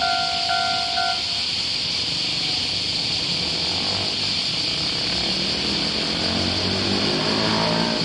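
Japanese level-crossing electronic alarm bell ringing its two-tone ding about twice a second, stopping about a second in as the barriers lift. Then the engines of the waiting cars and a truck rise as they pull away. A steady high hiss runs underneath throughout.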